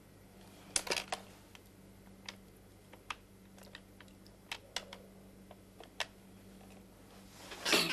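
Push-button telephone keys clicking as a number is dialled: a quick cluster of clicks about a second in, then single presses every half second or so, and a louder rustle near the end.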